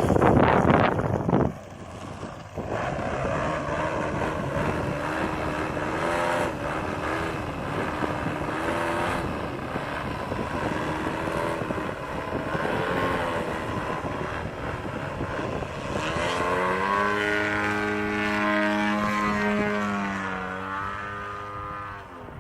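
Desert Aircraft DA-70 twin-cylinder two-stroke petrol engine of a large aerobatic RC plane in flight, its note rising and falling as the throttle and distance change. A loud rush in the first second and a half; near the end the note dips and climbs again.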